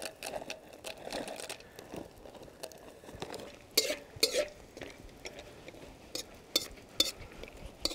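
Dry spiral pasta pouring from a bag into a steel wok of sauce, then a metal utensil stirring in the wok with several sharp clinks and knocks against its side.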